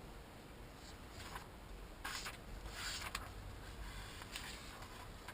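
Pages of a repair manual being leafed through: a few soft, papery swishes.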